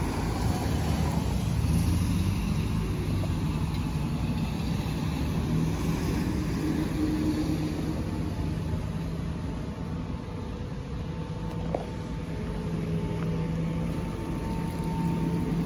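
Road vehicles running in street traffic, with a steady low hum and a fainter whine that rises slightly in the second half.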